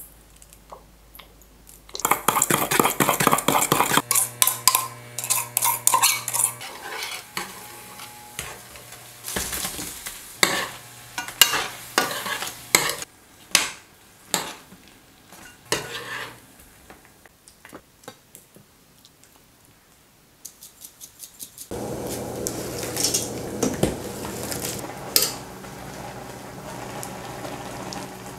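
A metal spatula scrapes and clacks against a frying pan as battered shrimp are tossed in a sizzling sauce. Later comes a steady hiss of a pot of water boiling with noodles in it.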